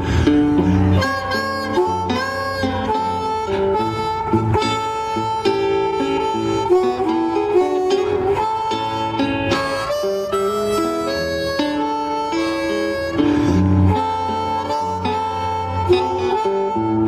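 Blues harmonica solo, played cupped in the hands around a microphone, with long held and bent notes over a resonator guitar's plucked accompaniment.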